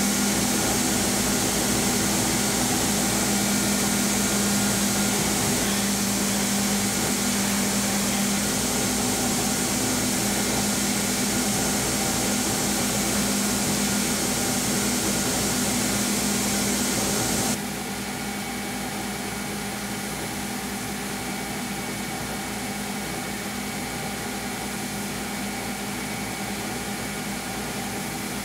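Belt grinder running steadily while a knife handle is shaped against the belt, a constant motor hum with belt hiss. About two-thirds of the way through the sound drops abruptly to a lower, duller steady level.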